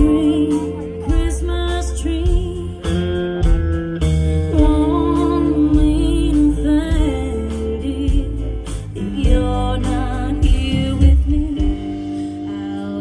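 A live band plays a song: a singer with guitars and drums. The vocal melody has wavering held notes, over a strong bass line and a steady drum beat.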